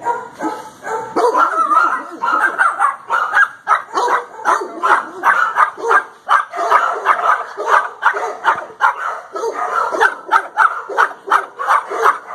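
Shelter dogs barking and yipping nonstop, a few barks a second, overlapping at different pitches.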